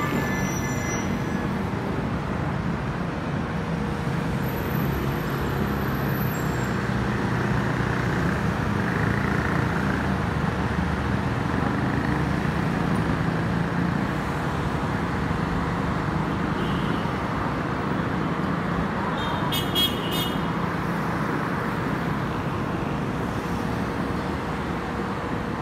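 Steady road traffic noise from cars and motorbikes passing on the street below, with a low rumble. A brief sharp clatter sounds about twenty seconds in.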